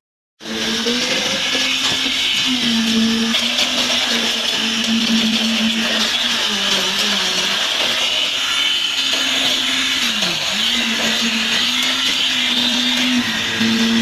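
Concrete poker vibrator running, cutting in abruptly about half a second in: a steady motor whine over loud noise, wavering and dipping in pitch, once sharply about ten seconds in, as it works the fresh concrete.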